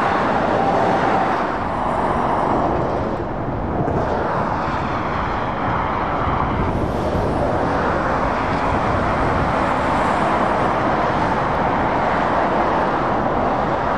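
Road traffic of lorries and cars driving past: a steady rush of tyre and engine noise that swells and eases every few seconds as each vehicle goes by.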